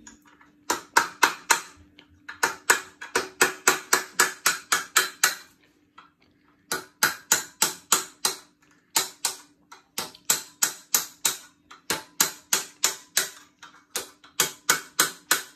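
Hammer blows on a steel bar held against a pit bike's stuck front fork triple clamp and steering stem, knocking it loose: sharp metal-on-metal strikes, about three or four a second, in runs of several with short pauses between.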